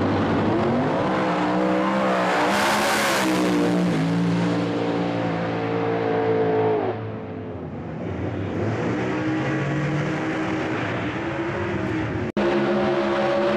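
Supercharged drag-racing engine of a Holden Torana hatchback at full throttle on a pass: pitch climbing from the launch and stepping down at the gear changes, then falling away about seven seconds in as the car lifts off past the finish. After a sudden break near the end, the engine runs loud again.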